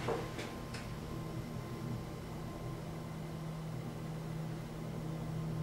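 SMW elevator car travelling down its shaft: a few short clicks near the start, then a steady low hum that grows slightly louder near the end.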